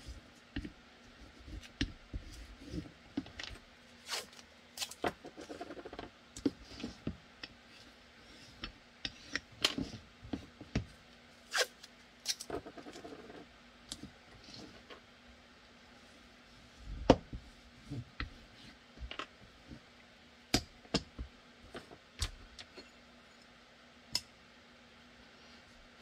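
Blue painter's tape being pulled, torn and pressed down by hand over the blocking on a pistol, with scattered clicks and taps of the gun and blocking being handled. A couple of short crackly stretches of tape coming off the roll.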